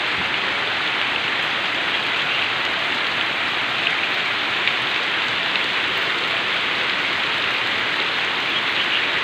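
Heavy rain pouring down steadily, an even unbroken hiss of drops on surfaces.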